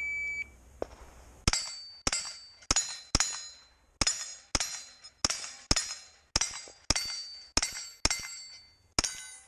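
A shot-timer beep, then about a second later a rapid string of rifle shots, roughly two a second, each followed by steel target plates ringing as they are hit.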